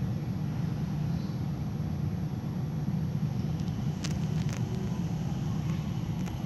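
Mitsubishi Crystal Mover airport people mover heard from inside the car while it runs along the guideway: a steady low rumble of its rubber tyres and drive. A few sharp clicks come about four seconds in.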